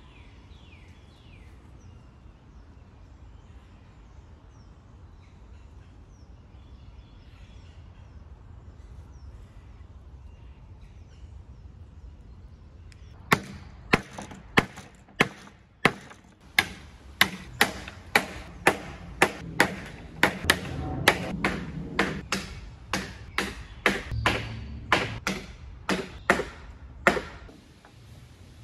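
Faint outdoor background with a few bird chirps, then, about halfway in, a quick run of sharp wooden knocks, about two a second, lasting some fifteen seconds, as 2x2 wooden rungs are knocked into the drilled holes of the 2x4 ladder rails.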